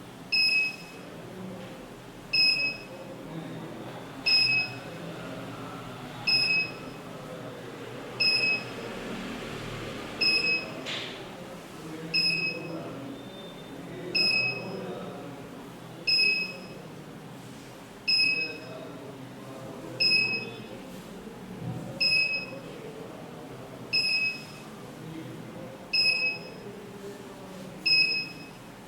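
ATSS Active 207 burglar alarm panel beeping: a short, high-pitched beep repeating evenly about every two seconds while both zones are being armed.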